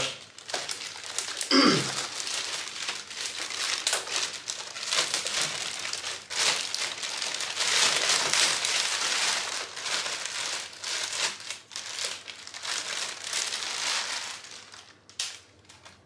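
Clear plastic wrapping bag crinkling and rustling as it is worked off a robot vacuum cleaner by hand, dying down near the end.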